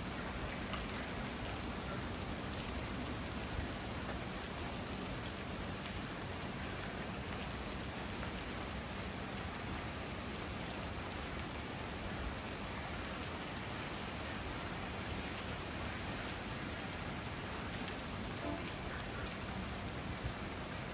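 Steady rain falling on the street and the leaves of a tree, an even hiss with scattered louder drop ticks.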